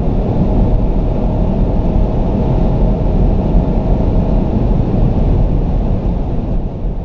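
Loud, steady rumble of road and wind noise inside a car cabin at high speed, strongest in the low end, with a faint thin whine over the first half.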